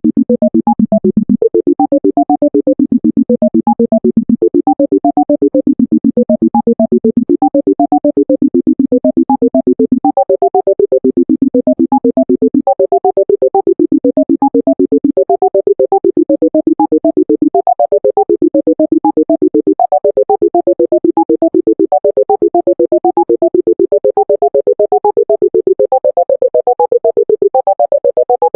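Computer sonification of the selection sort algorithm: a rapid stream of short synthesized beeps hopping through pitches as the array is scanned, over a held lower tone that shifts in pitch every few seconds and climbs overall as the sort moves on.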